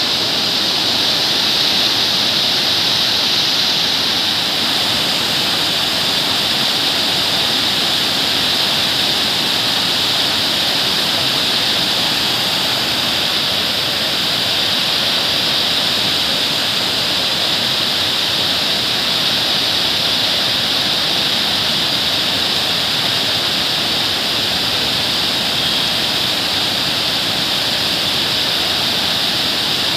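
River water spilling over the full length of a dam's weir crest and foaming down its face: a steady, unbroken rush of falling water.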